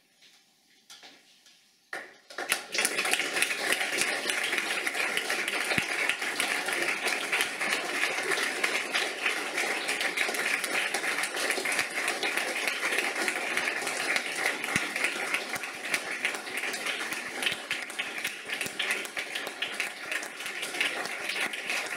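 Audience applauding. After a brief hush it starts suddenly about two and a half seconds in and carries on steadily as dense, crackling clapping.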